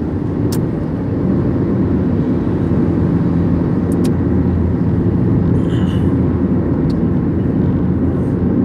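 Steady low rumble of road and engine noise from a car driving along a highway, with a few faint clicks.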